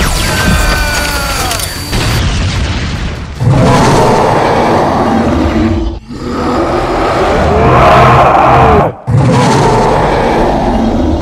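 Loud, layered cartoon battle sound effects: booming blasts and heavy rumbling, with falling whines in the first second or so as an energy beam fires. The din cuts out briefly twice, about six and nine seconds in.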